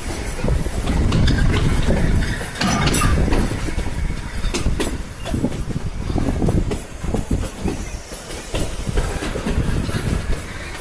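Shimla toy train running on the narrow-gauge Kalka–Shimla line: a continuous low rumble with irregular clacks of the wheels over the rail joints.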